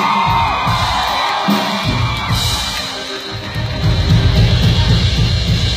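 A live band playing loud amplified music with a heavy beat, with the crowd cheering and whooping over it.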